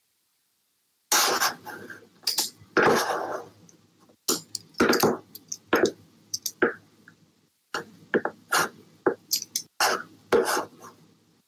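Irregular clattering and rubbing handling noises picked up by an open video-call microphone. The noise cuts in about a second in and drops out briefly a couple of times.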